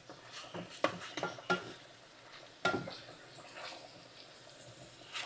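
A spoon stirring chicken and onions in a skillet, scraping and knocking against the pan several times, the loudest knock about two and a half seconds in, over faint frying.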